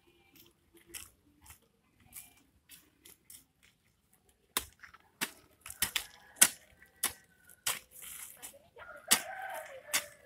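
Flat-bladed hand hoe chopping and scraping into loose garden soil, breaking it up for a new planting bed. A few faint scrapes are followed, about four and a half seconds in, by a run of sharp strikes, roughly two a second.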